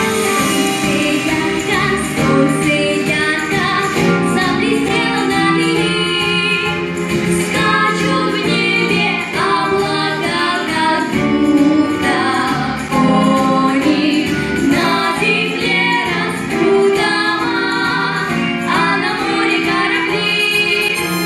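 A boy and a girl singing a song together into handheld microphones, amplified, over instrumental accompaniment.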